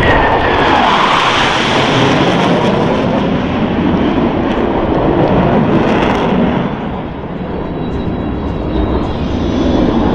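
Loud jet roar of Boeing F/A-18E/F Super Hornets flying past, with a falling whine in the first second or so. The roar eases about seven seconds in, then builds again.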